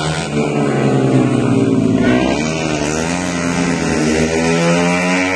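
Two Yamaha Jupiter MX single-cylinder four-stroke motorcycles racing flat out, engines at high revs, their pitch dipping about two seconds in and then climbing again.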